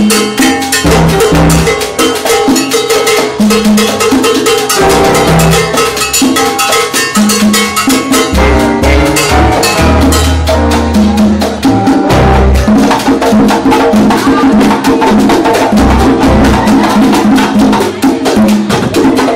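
Live Latin jazz from a charanga band: congas drumming in a dense, steady rhythm over bass, violins and timbales.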